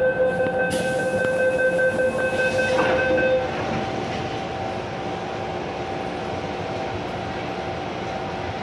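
MTR M-Train door-closing warning tone sounding steadily for about three and a half seconds, with a knock from the doors shutting near its end. After that comes the steady hum of the standing train car.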